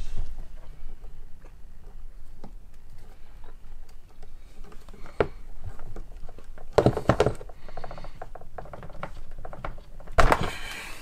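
Hand-held wire stripper clicking and snapping as it strips the insulation off a thin wire, with small handling clicks in between. The loudest snaps come about five seconds in, around seven seconds and again near the end.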